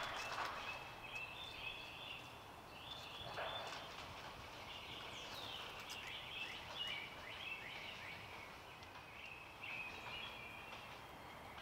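Songbirds chirping and singing, with a run of quick high notes and short falling whistles overlapping throughout. There are a couple of brief rustles near the start and about three seconds in.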